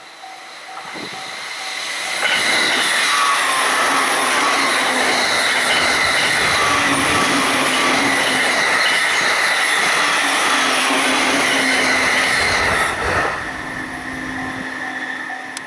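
Japanese level-crossing warning bell ringing in a quick repeating pattern as an electric train passes at high speed. From about two seconds in, the wheels and rails make a loud rush with a high ringing tone that lasts about eleven seconds. Near the end the rush fades and the crossing bell is heard again.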